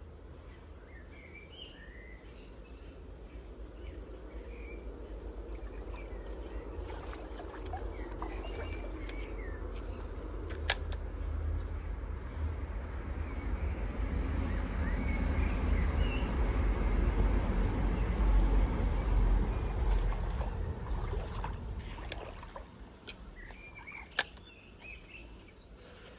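Outdoor background noise with a low rumble that swells through the middle and fades near the end, small birds chirping now and then, and two sharp clicks.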